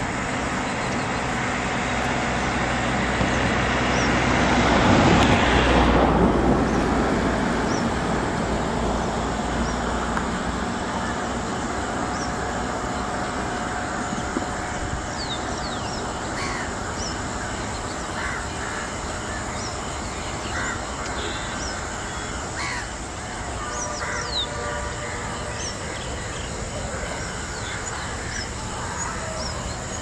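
Outdoor ambience: a steady rushing noise swells to its loudest about five seconds in and slowly eases, with scattered short bird chirps and calls through the second half.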